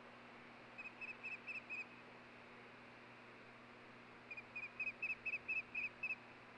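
Osprey calling: two runs of short, high whistled chirps at about five a second, about six notes and then, after a pause of a couple of seconds, about nine louder ones. A steady hiss and faint hum of the nest-cam microphone run underneath.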